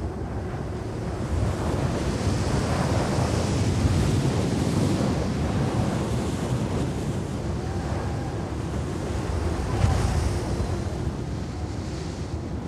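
Rushing wind noise that swells and then slowly fades, with faint whistling tones drifting through it.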